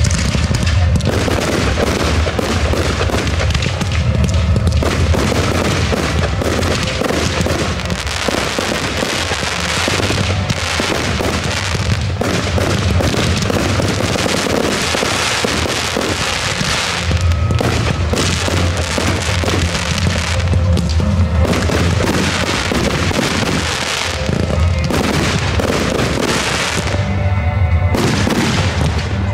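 A fireworks display firing without a break: a dense run of launches, bangs and crackling bursts, over music with a heavy bass.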